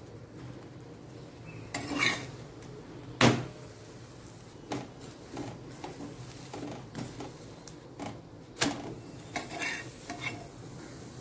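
Metal spoon and spatula scraping and knocking against a cast-iron tawa while a puran poli fries, over a steady low sizzle. The strokes are irregular, with the sharpest knock about three seconds in, another loud one near the ninth second, and a quick run of scrapes just after as the bread is turned.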